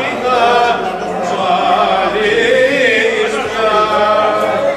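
A group of men singing a Greek folk song together, unaccompanied, in long, wavering drawn-out notes.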